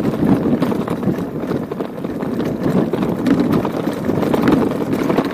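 Mountain bike clattering over a rough cobblestone track: a fast, irregular run of knocks and rattles from the tyres and frame on the stones.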